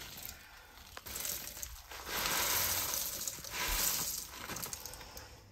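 Ingredients going into a hot pot of browned ground meat and tomato paste: a low sizzle with light clinks, and two hissing swells about two and nearly four seconds in.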